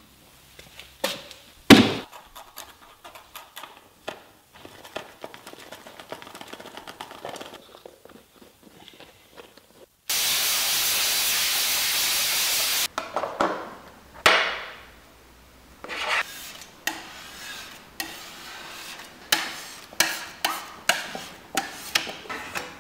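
Scattered knocks, taps and rubbing, with a loud steady hiss about ten seconds in that lasts about three seconds and starts and stops abruptly.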